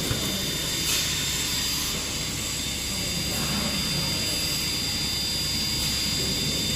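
Hot melting plastic welding machine running through a press cycle, a steady hum and hiss with a faint click about a second in.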